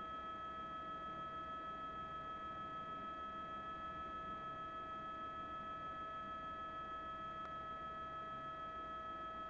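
A steady pitched tone with overtones, holding one pitch without change, over a faint low rumble.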